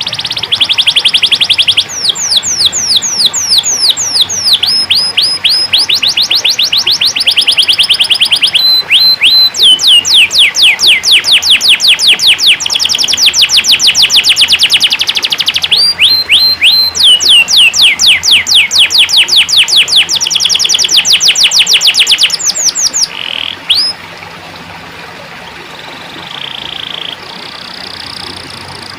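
Canary singing: loud, rapid trills of repeated downward-sweeping whistled notes, phrase following phrase with short breaks near 9 and 16 seconds in, before the song drops to a much quieter level about 24 seconds in.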